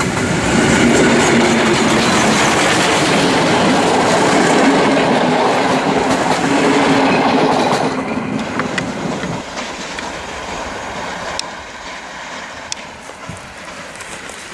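Passenger train behind the Pt47 steam locomotive rolling past, its wheels clattering over the rail joints. Loud for the first eight seconds or so, then fading as the train moves away.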